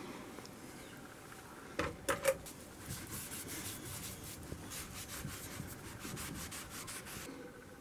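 Hand sanding on a cast-iron kettlebell: a couple of sharp knocks about two seconds in, then a steady run of quick rubbing strokes that stops shortly before the end.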